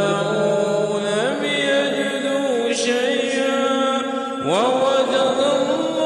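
A man reciting the Quran in a melodic chant, holding long notes that slide up and down in pitch, with a sharp upward slide about four and a half seconds in.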